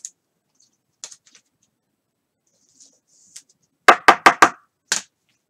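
Sharp hard knocks: four in quick succession about four seconds in, then one more half a second later, with faint handling sounds before them.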